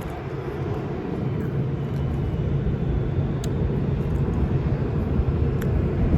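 Steady low engine drone of distant machinery, getting slightly louder through the stretch, with a couple of faint ticks.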